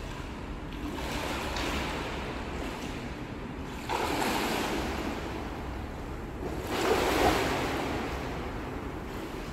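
Water splashing and swishing from a swimmer doing a breaststroke drill of two kicks to each arm stroke. The splash swells three times, about every three seconds.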